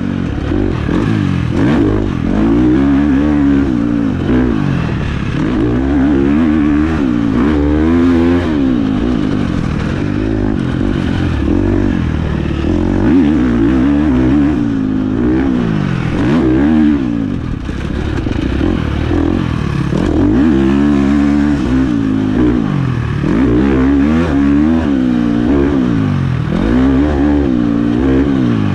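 1996 Honda CR125's two-stroke single-cylinder engine being ridden hard, the revs climbing and dropping over and over every second or two.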